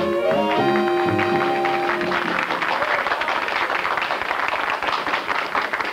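A dance band's final chord is held and dies away, and about two seconds in applause takes over and continues.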